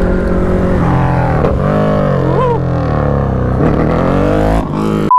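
Motorcycle engine running on the move, steady at first, then its pitch falls and rises again a couple of times as the throttle changes. A steady high beep starts right at the end.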